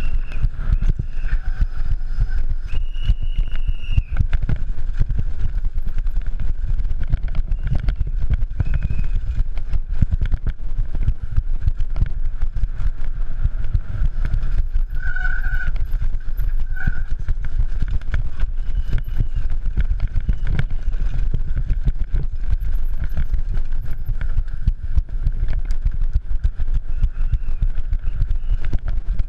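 Downhill mountain bike ridden fast over grass, cobblestones and steps: a constant low rumble of wind on the microphone, with dense rattling and clattering from the bike over the rough ground.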